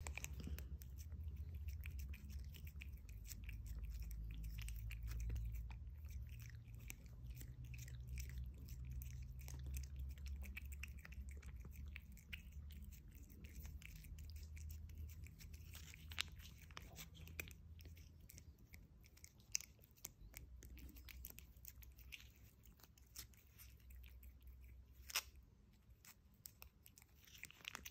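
Siamese cat licking salmon puree from a squeeze-up treat tube: quick, wet smacking and lapping clicks right through, with one sharper smack near the end.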